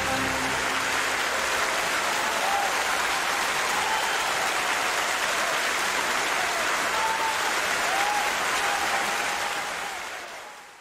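Large audience applauding steadily, with a few faint cheers over the clapping, fading out near the end.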